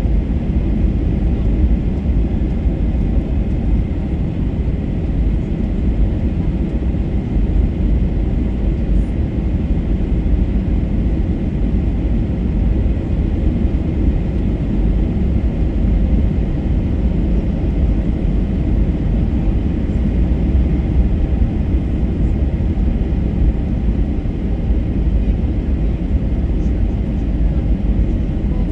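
Steady low cabin noise inside an Airbus A321-231: its IAE V2500 turbofan engines and the airflow over the fuselage, heard from a passenger seat.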